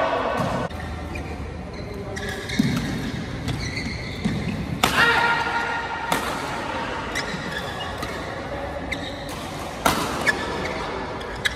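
Badminton doubles rally: rackets strike the shuttlecock with sharp cracks, several times and at uneven intervals. Between the hits, shoes squeak briefly on the court mat as the players move.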